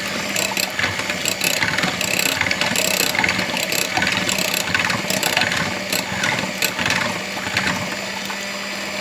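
Electric kitchen mixer running steadily as it blends banana, water and honey into a smoothie, a constant motor hum with irregular clicks and knocks throughout.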